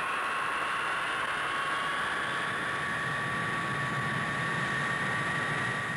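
The Boeing 367-80 prototype's reconditioned Pratt & Whitney jet engines running on the ground: a steady high whine over a broad rush of noise, with one whine tone slowly rising in pitch.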